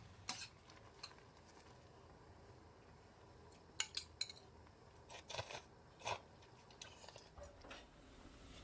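Kitchen utensils clinking and tapping: a scattering of separate sharp clicks at uneven intervals, several grouped close together about four seconds in.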